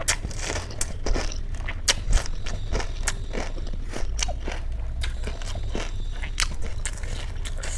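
A mouthful of pani puri being chewed, the crisp puri shell crunching in many irregular sharp crunches.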